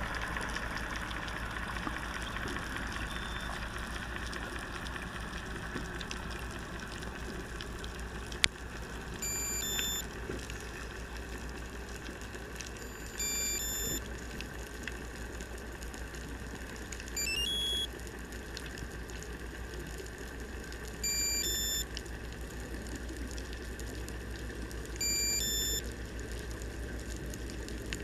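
Underwater hiss and low rumble, with a sharp click about eight seconds in. From about nine seconds in, a short electronic beep sounds every four seconds, five times; some are a quick rising run of notes.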